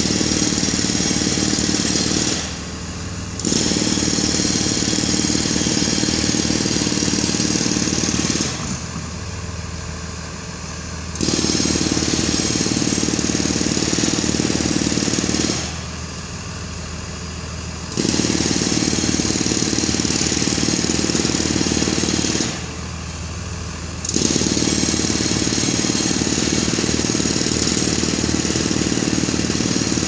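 Blue Bird Vision school bus engine idling with a rough, clattering running sound. It steps between a louder and a quieter level, dropping back four times for one to three seconds before picking up again.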